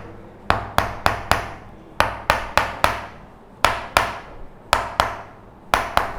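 Sharp percussive strikes on the lower thoracic and upper lumbar spine during a chiropractic adjustment. They come in quick runs of two to four, about four a second, with short pauses between runs. The adjustment is meant to push a segment tilted to the right back into alignment.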